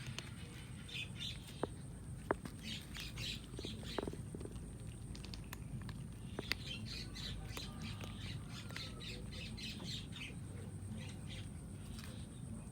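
Birds chirping and chattering over and over, with a few sharp clicks.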